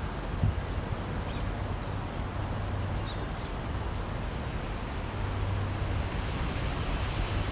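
Wind rushing steadily over the microphone, an even hiss with a low rumble underneath.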